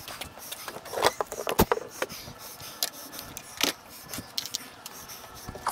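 Work-site handling noise: scattered knocks and clicks of wood and tools with some scraping. The sharpest knock comes about a second and a half in.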